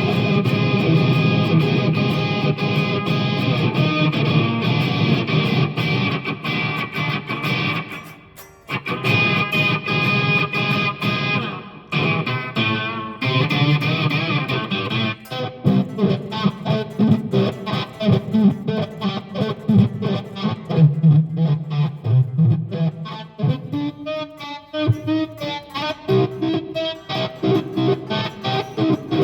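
Electric guitar, a Les Paul copy, played through a Marshall CODE 100 amp head and 4x12 cabinet. Sustained ringing chords for about the first half, with a short break about eight seconds in, then quicker, choppier picked notes.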